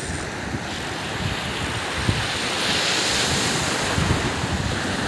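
Surf washing on the shore, a steady noise, with wind rumbling on the microphone.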